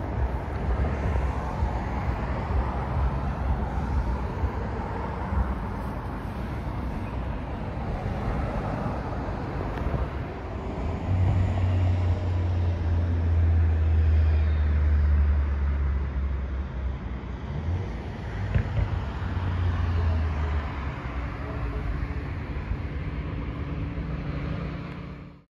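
Outdoor traffic noise with a deep rumble that swells from about the middle and fades later. The sound cuts off suddenly at the very end.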